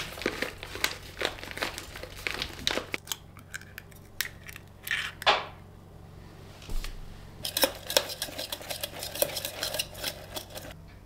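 A paper muffin-mix packet crinkles as dry mix is shaken into a stainless steel pitcher. About five seconds in comes a single louder swish. Then a wire whisk beats the batter, clinking against the steel sides about five times a second.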